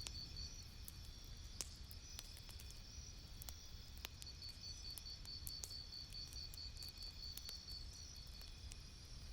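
Campfire crackling softly: scattered sharp pops and snaps over a low steady rumble of burning wood. A high pulsing trill runs along behind it, fading out briefly a few seconds in.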